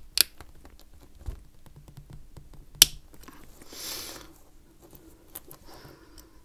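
Sharp metallic clicks of a steel case knife levering at a seized Seiko SKX013 dive-watch bezel, the loudest about three seconds in, with a brief scraping hiss just after. The bezel is stuck fast, which is taken to mean it is blocked with gunk underneath.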